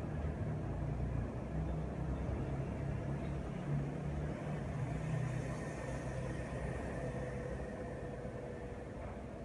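Steady low mechanical rumble with faint steady tones over it, easing off slightly near the end.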